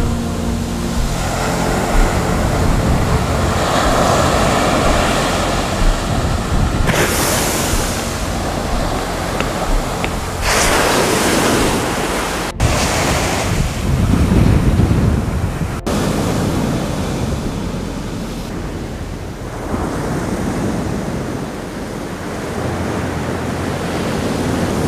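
Surf breaking and washing on a beach, with waves swelling louder about a third of the way in and again near the middle, and wind rumbling on the microphone.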